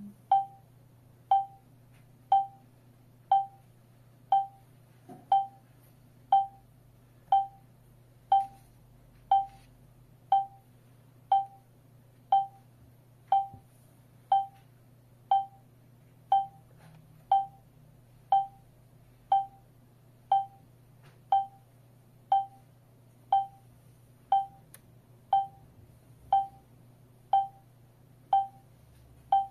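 STANIOT WiFi/4G home alarm system beeping its exit-delay countdown while it arms: one short beep about every second, evenly spaced and all at one pitch.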